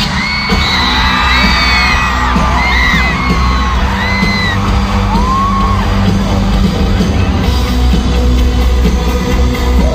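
Live rock band playing loud through a concert sound system, with fans in the crowd letting out several high screams in the first half.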